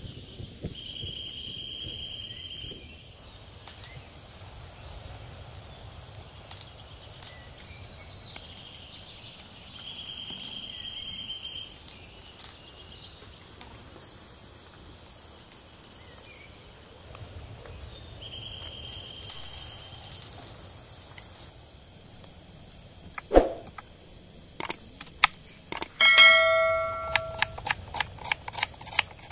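Steady shrill insect chorus, cicadas or crickets, with a short buzzing call every eight seconds or so. Near the end there is a sharp knock, then a loud ringing clink, then quick knife chops through shallots on a wooden board.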